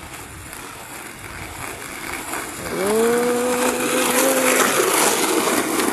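Skateboard wheels rolling on a paved path, the rolling noise growing louder about halfway through as the board comes up close. Over it, a single drawn-out vocal call lasts about two seconds.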